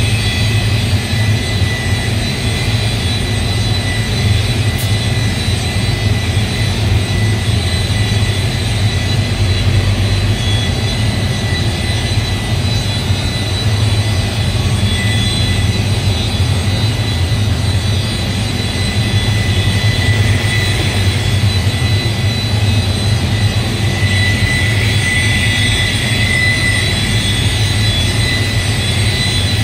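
Handheld electric car polisher (buffer) with a foam pad, running steadily on car paint: a constant low hum with a high whine over it.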